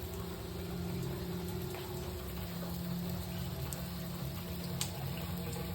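Hot water spraying and hissing out the top of a failed, corroded expansion tank, under system pressure. A steady low hum runs beneath it, with a single sharp tick near the end.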